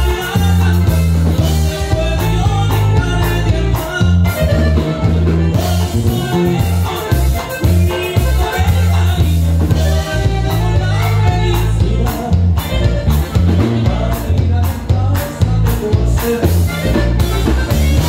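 Norteño dance music played live by a band: a bass line stepping between low notes and a melody line over steady drum hits, with singing.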